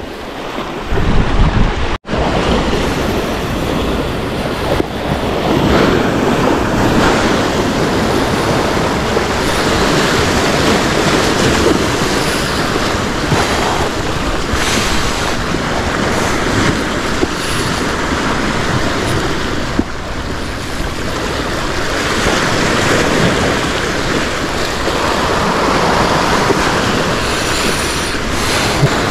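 Surf washing against the shore, swelling and easing every few seconds, with wind noise on the microphone. The sound cuts out for an instant about two seconds in.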